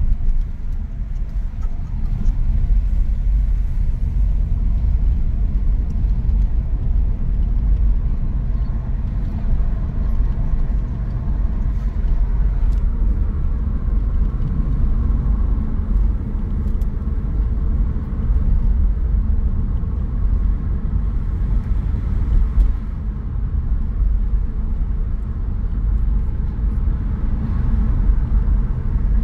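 Car driving at a steady pace: continuous low road and engine rumble, heard from the car itself.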